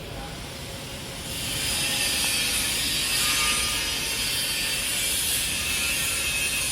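EA48-1352 woodworking CNC router cutting into a wood panel, the cutting noise rising about a second in and then running steadily.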